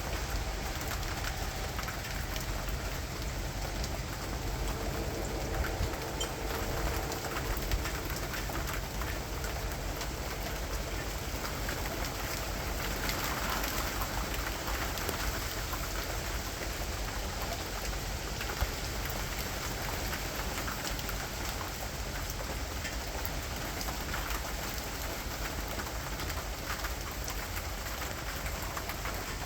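Steady rain falling, with a few louder single drops standing out.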